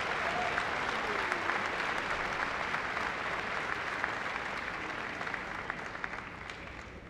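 Large audience applauding, fading away toward the end.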